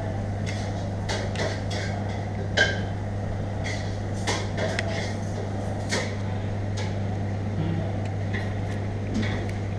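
Metal fork and spoon clinking and scraping against a plate of noodles: scattered sharp clicks, the loudest about two and a half seconds in, over a steady low hum.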